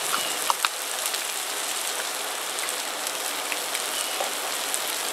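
Corn and vegetables frying in a pot on a gas burner: a steady sizzle with a few sharp pops about half a second in.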